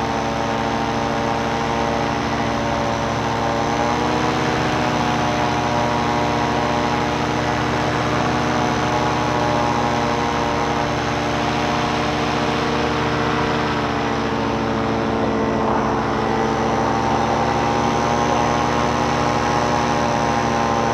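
Tandem paramotor's engine and caged propeller running steadily in flight, a constant pitched hum with a rush of noise, the pitch shifting slightly about four seconds in and again around fifteen seconds in.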